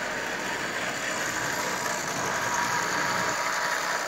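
Lionel O-gauge toy steam locomotive running slowly on three-rail tubular track, pulling eight cars: a steady whir of its electric motor and the rumble of wheels on the metal rails.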